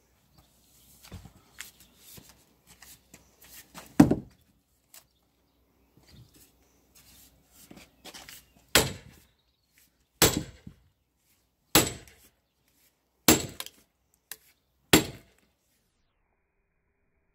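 A sledgehammer striking the back of a splitting maul stuck in a cypress log round, driving it in like a wedge to split the wood. Sharp knocks: one about four seconds in, then five more evenly about a second and a half apart, with faint scuffing and rustling between.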